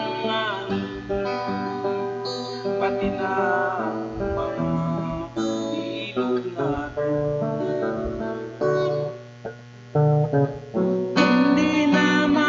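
A man singing along to his own strummed acoustic guitar. The music drops to a brief lull about nine seconds in, then comes back louder just after eleven seconds.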